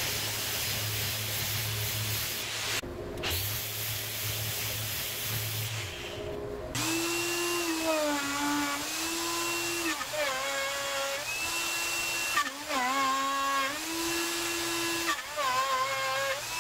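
A Makita random orbital sander runs with its dust-extraction hose attached, grinding down the cured resin coat on an end-grain cutting board. About seven seconds in, a plunge router takes over, cutting a side-grip slot into the board's edge. The router's high whine dips in pitch each time the bit bites into the wood, then recovers.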